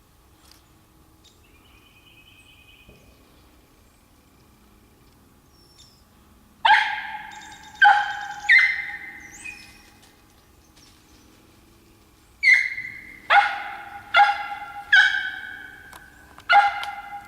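Squirrel-hunting dog barking, about eight sharp barks in two bouts: three together, a pause of a few seconds, then five more. It is the kind of barking a treeing dog does at a squirrel up a tree.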